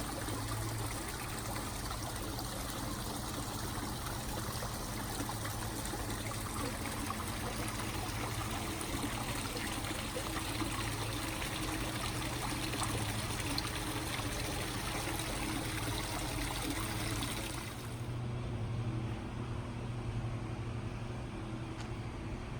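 Water trickling and splashing steadily in a garden pond, over a steady low hum. About eighteen seconds in, the bright splashing hiss drops away and a duller rumble remains.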